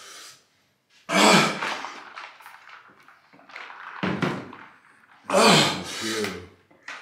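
A man's wordless cries and groans of pain from the burn of an extremely hot chip. There are three loud outbursts: about a second in, at about four seconds and around five and a half seconds, the last one falling in pitch.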